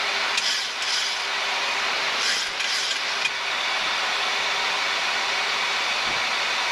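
Steady rushing airflow noise on a Boeing 737 flight deck during approach, while the flaps are extended from 1 to 5. A faint steady hum runs underneath, and the rush swells slightly a couple of times in the first three seconds.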